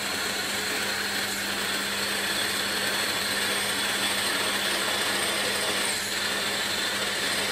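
Milling machine running steadily while a half-inch high-speed steel drill bit, hand-fed on the quill, cuts into a cast rocker arm casting: an even machine hum with a faint high whine over the cutting noise.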